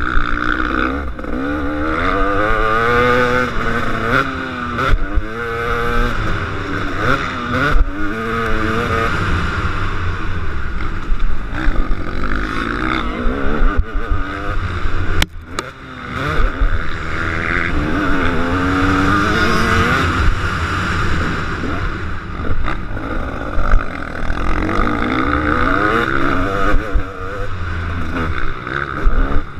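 KTM 250 SX two-stroke motocross bike racing, its engine revving up and falling back again and again as the throttle is opened and shut. About halfway through there is a sharp crack, and the engine briefly drops off.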